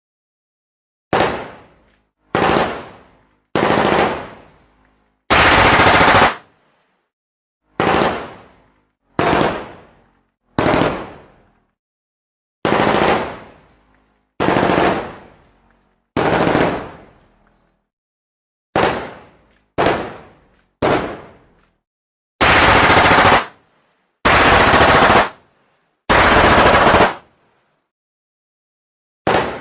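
Gunshot sound effects: about a dozen separate single shots, each with a fading echo and with silence between them, plus four bursts of automatic fire about a second long each, one early on and three in quick succession in the last third.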